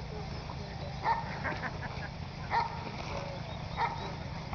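A dog barking in short single barks, about one every second and a half, over a steady low rumble.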